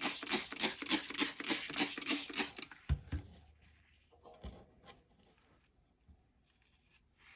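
Hand spray bottle squeezed in quick succession, about four hissing sprays a second, misting a paper cover with an alkaline solution. The spraying stops about three seconds in, followed by a dull thump and a softer knock.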